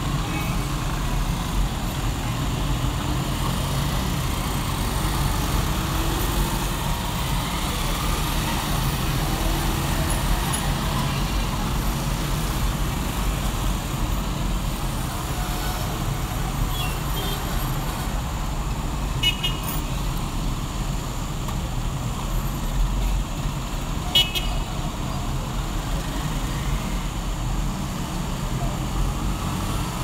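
City street traffic: a steady rumble of car and motorcycle engines, broken by a few short horn toots, the clearest about two-thirds of the way through.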